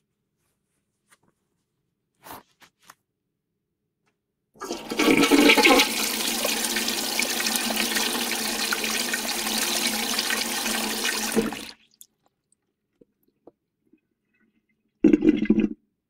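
Urinal flushing: a rush of water that starts loudest, runs steadily for about seven seconds and then cuts off. A few faint clicks come before it, and a short noisy burst near the end.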